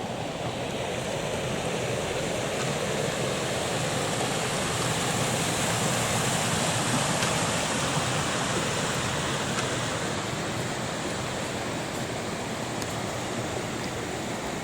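Steady rush of flowing water, growing louder to about halfway through and then slowly fading.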